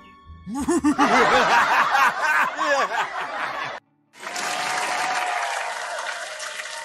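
Canned studio-audience laughter over applause, cutting off abruptly just before halfway. After a brief silence, a second steady burst of crowd applause starts.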